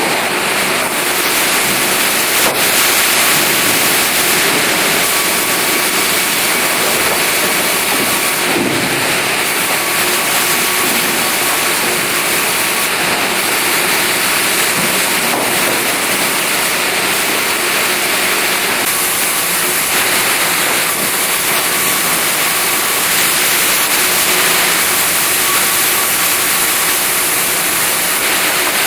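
OHI MCC-type twin-table vertical band saw running with a loud, steady noise that stays even throughout.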